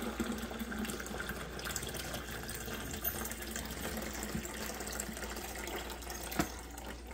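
Water pouring from a glass coffee carafe into a drip coffee maker's reservoir, a steady splashing fill. A single knock sounds near the end.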